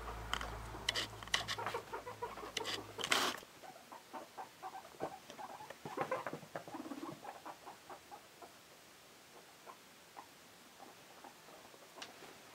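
Guinea pigs running and hopping about, a quick patter of small feet with light taps on the floor, busiest in the first few seconds and then sparser and fainter. A low hum underneath stops suddenly about three and a half seconds in.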